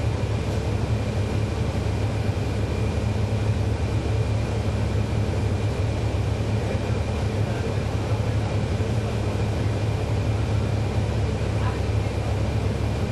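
A 2011 NABI 40-SFW transit bus with a Cummins ISL9 diesel engine, running steadily, heard from inside the bus. It makes a strong low hum with a faint high steady whine above it, and the pitch neither rises nor falls.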